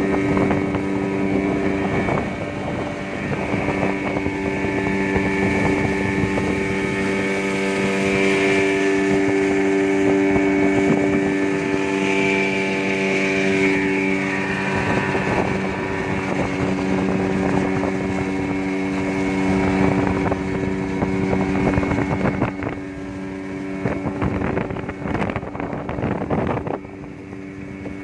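Yamaha Enduro 15 hp two-stroke outboard motor running steadily with the boat under way, growing somewhat quieter near the end.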